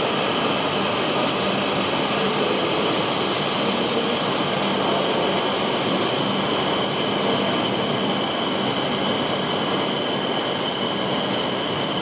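Shinkansen train running into an underground station platform: a steady rushing noise with a high whine.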